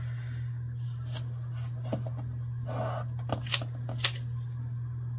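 Paper being folded and creased by hand, with soft rustling and a few short crisp clicks, over a steady low hum.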